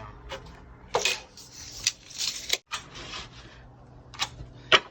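A few scattered sharp clicks and knocks of wooden trim stock and hand tools being handled while a carpenter measures and marks blind stop, the loudest knock near the end.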